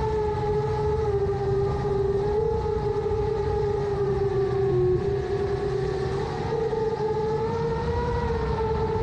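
7-inch FPV quadcopter's brushless motors and propellers whining steadily in flight, the pitch wavering slightly up and down with throttle, over low wind rumble.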